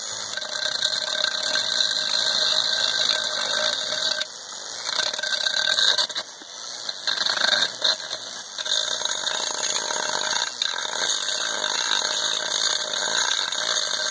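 Drill spinning a homemade flex shaft (a 5/8-inch drain cable inside 1-inch poly hose with a cutter head on the end), running steadily with a rattle. The level dips briefly about six seconds in.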